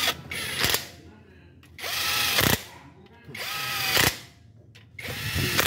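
Cordless impact wrench driving in the bolts of a new balancer shaft assembly on a Toyota 2AR-FE engine. It runs in four short bursts: one ends under a second in, and three more follow roughly every second and a half.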